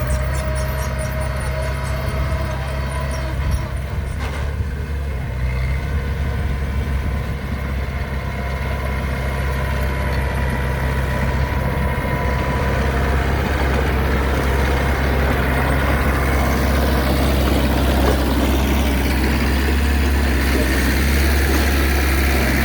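Heavy machine's engine, likely an excavator's, running steadily at idle, growing a little louder in the second half.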